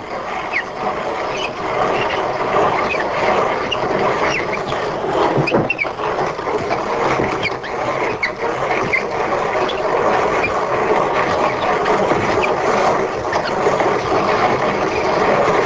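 Grain mill grinding a handful of dried sprouts (mung beans, wheat and alfalfa) into meal: a steady grinding noise with scattered small cracks and ticks.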